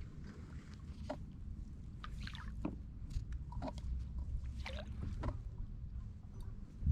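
Kayak paddle strokes in calm water: a series of short splashes and drips over a low, steady rumble.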